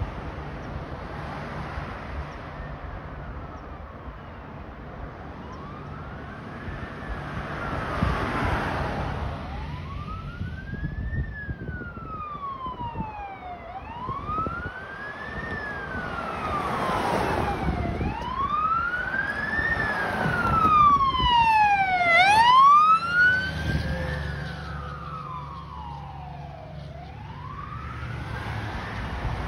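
Fire engine's wail siren sweeping slowly up and down, about once every four seconds. It grows louder as the truck approaches, is loudest as it passes about three-quarters of the way through, then fades, over the rumble of passing traffic.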